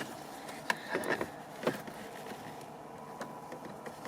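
A few light plastic clicks and taps from handling the removed multifunction wiper switch and its wiring, scattered over a low steady background.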